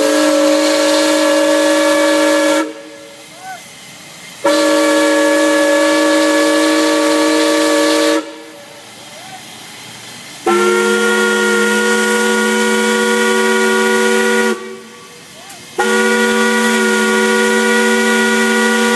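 A whistle blown in four long blasts of about four seconds each, every blast sounding several steady tones at once like a chord. The first two blasts are higher in pitch than the last two.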